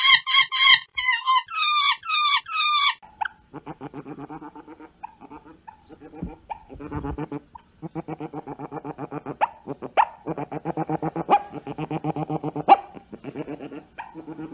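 Monkeys giving a quick run of short, high-pitched squealing calls. About three seconds in, this gives way to an otter's buzzy, rapidly pulsed whining calls, broken by a few sharp squeaks.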